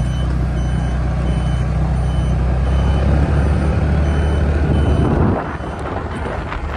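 Highway traffic heard from a moving motorcycle: a deep, steady engine rumble that eases off about five seconds in. A faint high beep repeats steadily over it.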